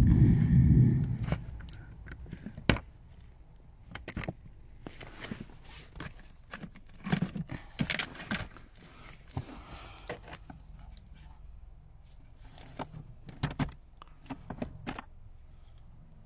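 Scattered clicks, taps and scrapes of hard plastic car interior trim and a plastic trim-removal tool being handled and pried at. A loud low rumble comes in the first second or so, and sharp ticks come at irregular intervals after it.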